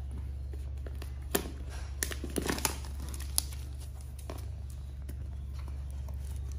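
Clear plastic shrink-wrap crinkling and tearing as it is pulled off a box by its tear tab. There are a few sharp crackles in the first half and softer rustling after, over a steady low hum.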